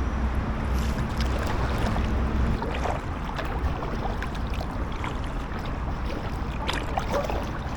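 Packraft paddling: a kayak paddle dipping and splashing, with drips off the blades, over a steady low rumble.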